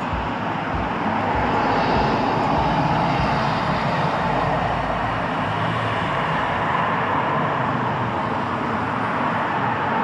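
Street traffic: vehicles driving by with their engines running, a steady traffic noise.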